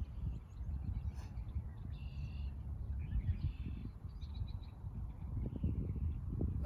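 A small bird calls in short chirps several times, about two, three and four seconds in, over a steady low outdoor rumble.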